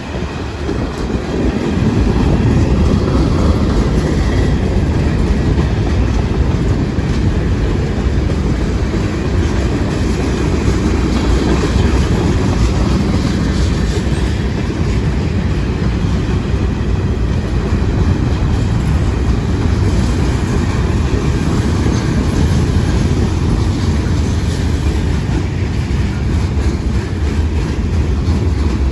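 Freight cars of a manifest train rolling past steadily, a continuous loud rumble of steel wheels on rail.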